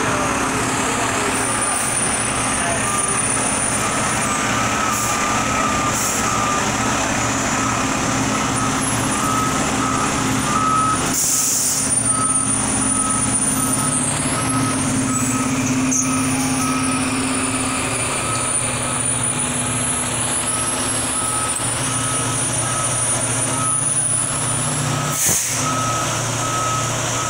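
Pierce fire engine reversing: its diesel engine runs steadily while the back-up alarm beeps over and over. Two short hisses of air from the air brakes come about eleven seconds in and near the end.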